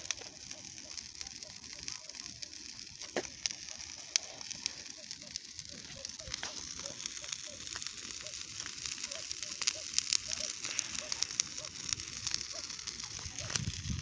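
Large bonfire burning: a steady hiss with frequent sharp crackles and pops from the burning wood.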